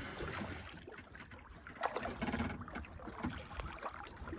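Water lapping and splashing softly around a sea kayak, with small splashes and drips, against a low rumble of wind on the microphone.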